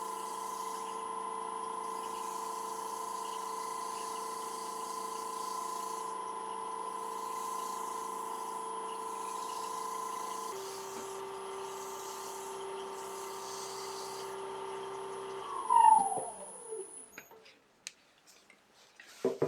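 Wood lathe motor running at a steady pitch while oil is burnished into the spinning bowl; about ten seconds in the whine steps down to a lower pitch, and around fifteen seconds in the lathe is switched off and its whine falls away as it winds down, followed by a few light clicks.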